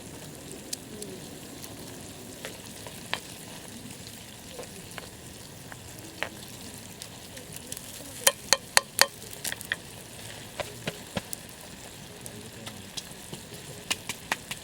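Food sizzling in a skillet over a campfire. Scattered sharp pops and clicks run through it, with a quick run of about five louder ones about eight seconds in.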